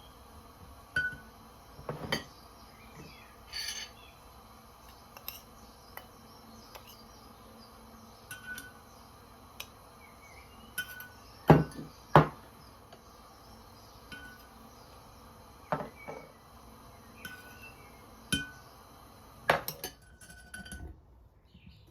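Scattered knocks and clinks of dishes and utensils being handled, two sharper knocks close together about halfway through. A short high chirp recurs every second or two underneath.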